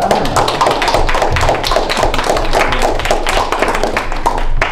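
A small group of people applauding, a dense patter of hand claps that dies away near the end.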